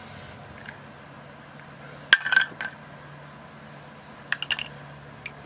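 Snail shells clicking and clinking against each other as they are handled and dropped, in three short clusters of sharp clicks.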